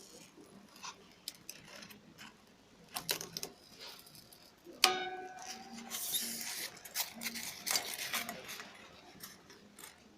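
Handling clatter: scattered clicks and knocks, with one sharp clink about five seconds in that rings on briefly, then a few seconds of rattling and rustling.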